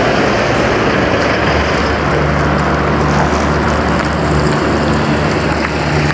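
Road traffic passing close by: tyre noise and engine hum of cars and a pickup truck. The engine hum grows stronger about a second and a half in and then stays steady.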